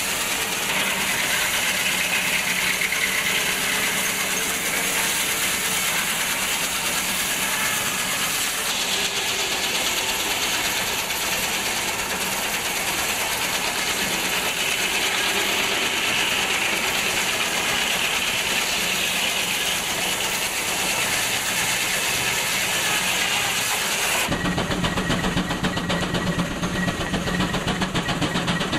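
Belt-driven sawmill saw cutting through a log: a steady, dense hiss. About 24 seconds in it changes abruptly to the steam traction engine and its long flat drive belt running, with a steady hum and a fast, even beat.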